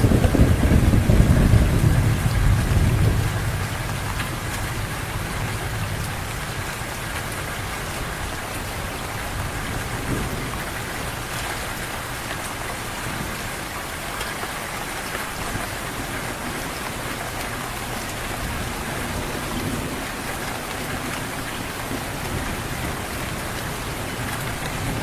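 Heavy rain falling steadily, with a low rumble of thunder at the start that dies away over the first three seconds.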